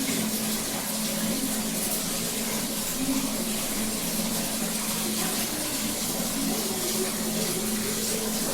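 Water running steadily and splashing, with a low steady hum underneath.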